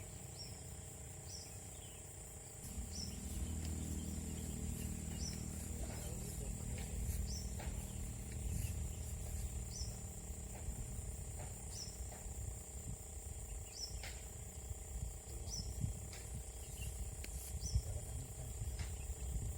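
Tropical outdoor ambience: a steady high insect drone, with a short high chirp repeating every second or two. A low rumble comes in about three seconds in.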